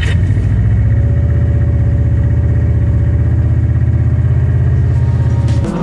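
Subaru Impreza WRX STI's turbocharged flat-four boxer engine idling with a loud, steady, rhythmic low rumble. It stops abruptly near the end.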